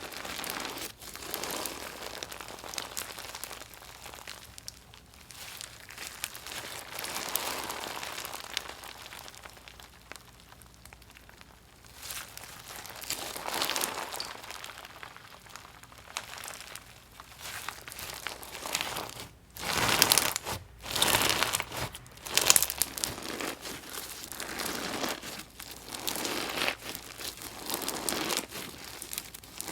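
Hands kneading and squeezing a gritty, crunchy slime, giving continuous crackling, grinding noises. About two-thirds of the way in it gets louder, with sharper crackles and pops.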